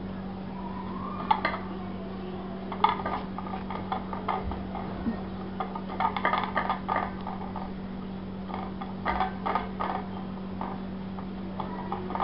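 Hands pressing and patting minced-mutton cutlets flat on a plate: small scattered clicks and taps against the plate, coming in several short clusters, over a steady low hum.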